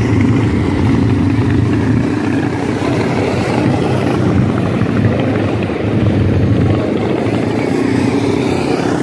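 Small racing engines of several dirt-track mini sprint cars running as they lap the oval, a steady, busy engine noise with no breaks.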